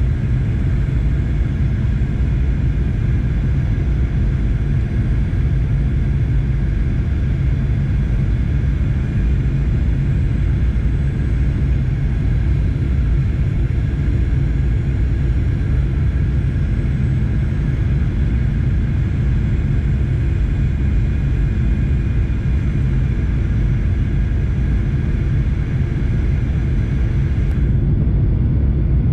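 Airliner cabin noise during the descent to landing: a loud, steady low rumble of jet engines and airflow, with a faint steady whine above it.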